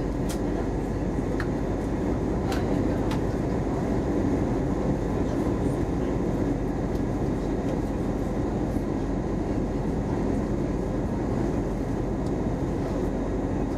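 Steady cabin noise inside an Airbus A320 on its approach descent: a dense, even rumble of engine and rushing air, heard from a seat near the wing. A few faint ticks come in the first three seconds.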